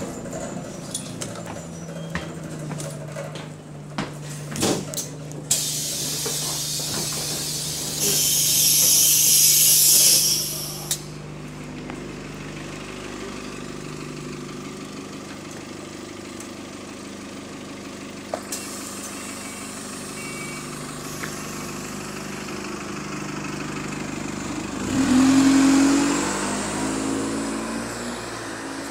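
A diesel bus's air system hisses loudly twice, about five and eight seconds in, over the engine running steadily at a stop. Near the end the engine note rises with another rush of air as the bus pulls away.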